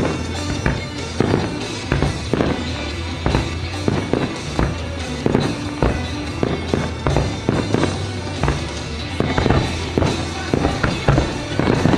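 Starmine fireworks display: aerial shells bursting in rapid, irregular succession, about two or three bangs a second, with music playing underneath.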